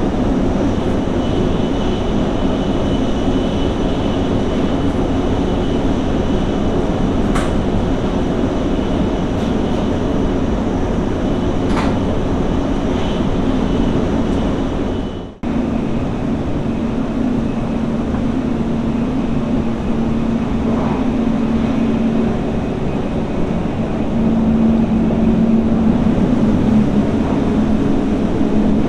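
Steady running noise of a Mizuho shinkansen at speed, heard from inside the car: an even rumble, with a steady hum in the second half that grows a little louder near the end. The sound drops out briefly about halfway.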